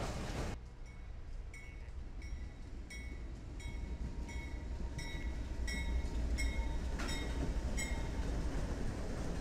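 CSX freight train passing with its diesel-electric locomotives, a steady low rumble that grows louder partway through. A short high ringing repeats about twice a second over it.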